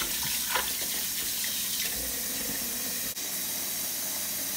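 Kitchen faucet running a steady stream of water into a stainless steel pot of bones and vegetable scraps, the pot filling. During the first second a hand stirs the scraps around in the water, adding some splashing.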